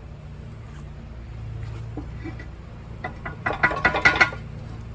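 A hand rummaging inside a rubber UTV tire, giving a quick flurry of rubbing and scraping strokes for about a second near the end, over a steady low hum.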